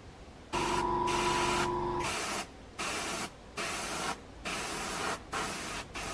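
Airbrush spraying in short bursts of compressed-air hiss. The first spray lasts about a second and a half and carries a steady whistle, then about five shorter spurts of around half a second follow.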